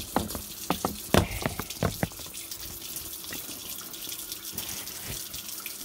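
Kitchen faucet running as bone-in chicken thighs are rinsed under the stream, with a few sharp knocks in the first two seconds.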